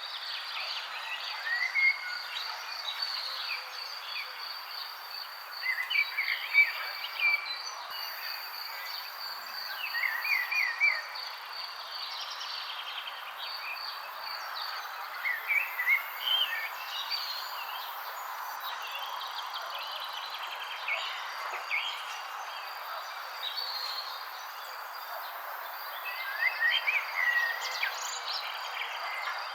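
Songbirds chirping in short bursts of quick rising and falling notes, over a steady, high, pulsing insect trill and a soft background hiss.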